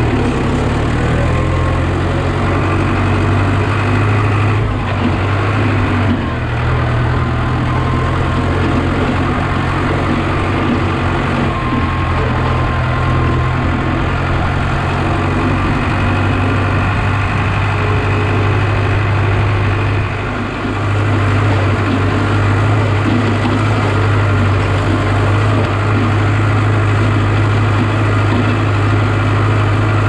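Farm tractor's diesel engine running steadily under way, heard from the driver's seat, with a slight dip in level about two-thirds of the way through.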